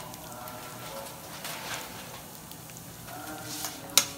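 Vermicelli sizzling steadily as it fries in ghee in a pan, stirred with a metal spoon. A sharp clink of the spoon against the pan comes near the end.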